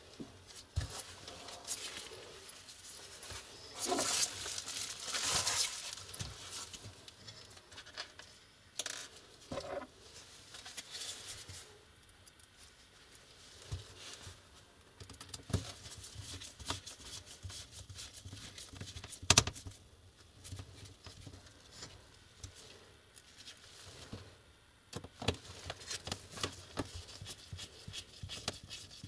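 Gloved hands handling a laptop LCD panel in its plastic bezel and working its mounting screws with a small screwdriver: rustling, light scrapes and small clicks. A denser stretch of rustling comes about four seconds in, and a single sharp click about two-thirds of the way through.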